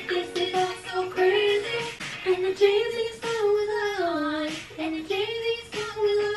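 A young female voice singing a song, phrases of held notes that slide up and down in pitch.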